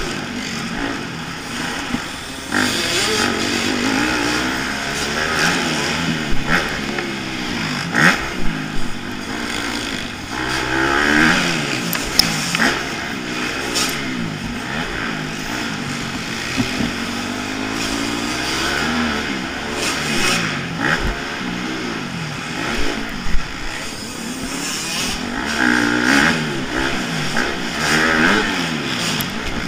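Dirt bike engine revving up and falling back again and again as the bike is ridden through turns and over bumps, heard close from the rider's helmet with wind noise on the microphone. Several sharp knocks cut through, around 2.5, 8, 12, 14 and 23 seconds in.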